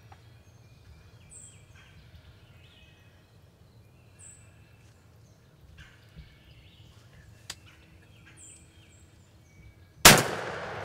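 Quiet spring woods with songbirds, one short high song phrase repeating about every three seconds. Near the end comes a single loud shotgun blast, the shot at the wild turkey gobbler.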